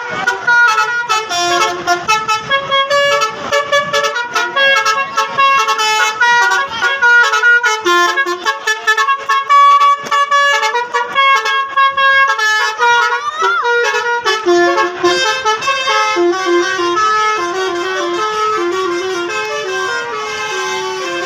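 Bus telolet horn, a multi-tone horn playing a quick melody of stepped notes, one tune running into the next. A short sweeping pitch glide cuts in briefly about midway.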